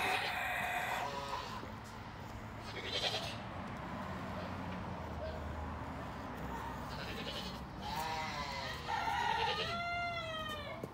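Farm animal calls: a short call at the start, another about three seconds in, and a longer run of calls that rise and fall in pitch over the last three seconds.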